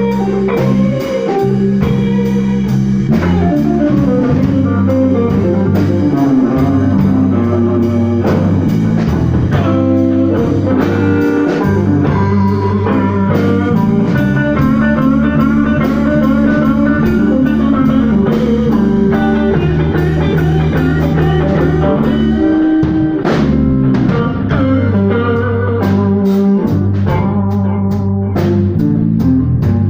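Blues band playing an instrumental passage with no singing: guitar over a steady bass line and drum kit.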